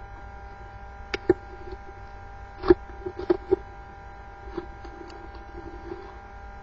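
Steady electrical hum, with a few short light clicks and knocks, about six, of small objects being handled on a table.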